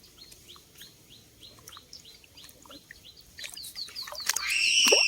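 A bird calling with short, quick chirps repeated about two or three times a second, then a louder, longer call that rises and falls near the end.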